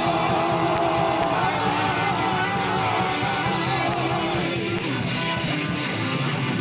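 Home-recorded rock band demo: guitars playing under a long lead note that wavers with vibrato and slides down about four and a half seconds in.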